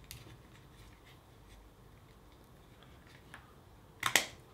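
Faint plastic clicks and scrapes from a remote car key's plastic case being handled and pushed together, with one sharp, louder click about four seconds in as a part snaps home.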